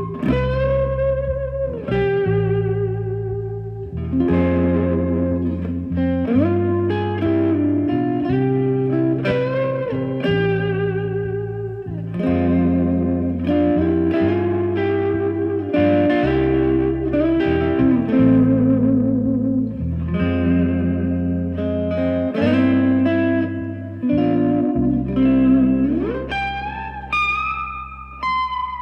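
Electric guitar playing a slow melody with heavy vibrato and sliding notes, over an electric bass holding long low notes. Near the end the guitar slides up into one long held note that fades away.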